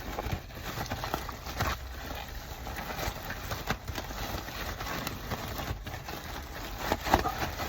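A takeout seafood boil being shaken in its container to coat the shrimp, corn and potatoes in the sauce: irregular knocking and rattling of food against the container.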